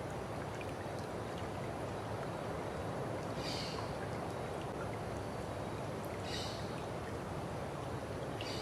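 Steady flowing stream water. Brief, faint high-pitched sounds come through twice, about three seconds apart.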